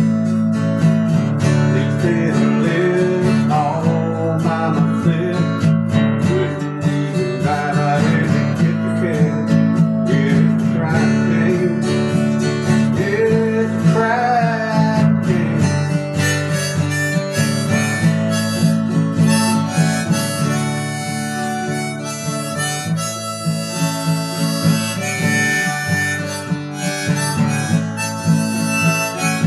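Instrumental music: a harmonica playing a melody with bent notes over a strummed acoustic guitar.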